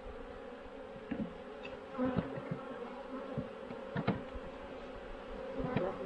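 Many honeybees buzzing in a steady hum around an open hive box while robbing is under way, broken by a few short knocks about one, two, four and six seconds in.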